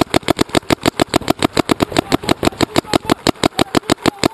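Shocker RSX electropneumatic paintball marker firing a rapid, steady string of shots, about ten a second without a break.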